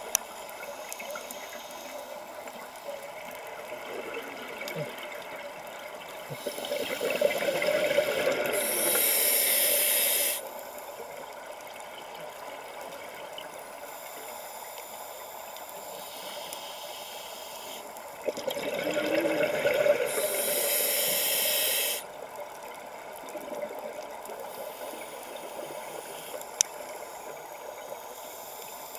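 Scuba diver's exhalation bubbles through the regulator, heard underwater: two long bubbling rushes of about four seconds each, some twelve seconds apart, each cutting off abruptly, over a steady underwater hiss.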